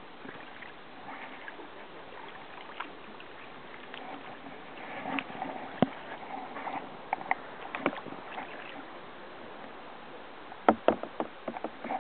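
Kayak paddling: the paddle blades dipping and splashing in the water, with a few sharp knocks and several quick knocks in a row near the end.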